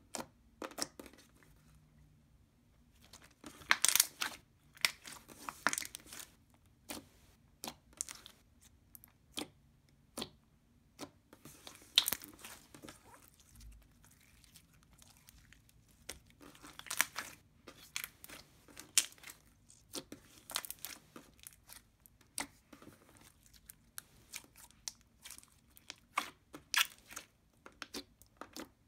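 Muggle Slimes' Unicorn Blood clear glue slime being stretched, squished and pressed by hand, making irregular clicking and crackling sounds that come in clusters.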